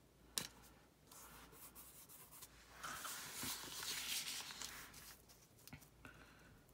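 Paper rubbing and sliding: a sticker pressed down onto a planner page and the paper planner pages moved and smoothed on a cutting mat. A light click comes about half a second in, and the rubbing is loudest for a couple of seconds in the middle.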